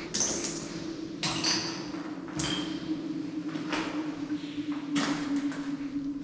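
Footsteps scraping and crunching over broken ceramic tile shards and debris on a tiled floor, about one step a second, over a steady low hum.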